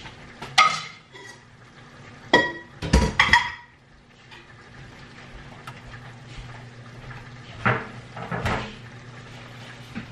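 Dishes and metal utensils clattering: sharp clinks and clanks with a short ringing after each, one about half a second in, a cluster from two and a half to three and a half seconds, and two more near eight seconds, over a steady low hum.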